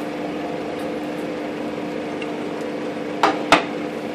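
Steady hum in the room, with two sharp knocks about a third of a second apart near the end as the opened typewriter and its parts are handled.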